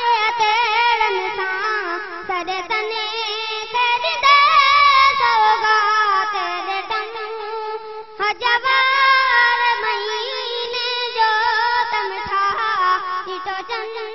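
A boy's high voice singing a Sindhi naat, a devotional song in praise of the Prophet, unaccompanied. He holds long, ornamented notes with a wide vibrato, and takes a brief pause for breath about eight seconds in.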